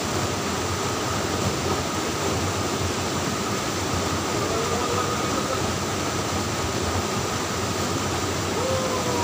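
Steady rush of stream water splashing into a rocky pool.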